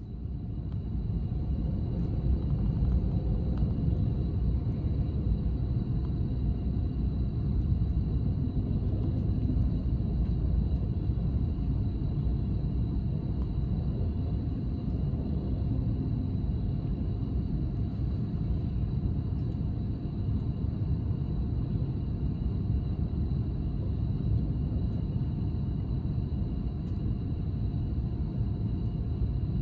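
Freight train hauled by two Hector Rail electric locomotives passing on the next track, heard from inside a stationary passenger train as a steady low rumble of wheels and wagons. It swells over the first couple of seconds as the locomotives come alongside.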